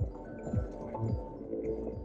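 Music with steady held tones and a low beat, about two beats a second.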